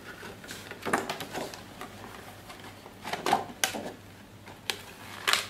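Clear plastic and cardboard packaging being handled and opened by hand: scattered clicks, taps and rustles, with a louder cluster about three seconds in.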